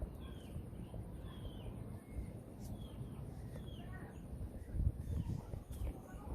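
Small birds chirping, a string of short falling calls repeating every half second or so, over a steady low rumble.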